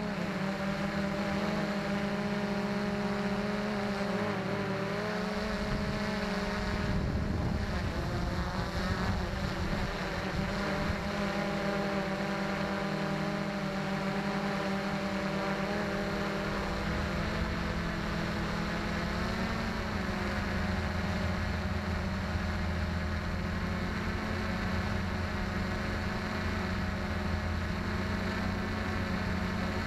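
XK X380 quadcopter's motors and propellers whining steadily in flight, heard close up from the drone's onboard camera, the pitch of the hum wavering now and then.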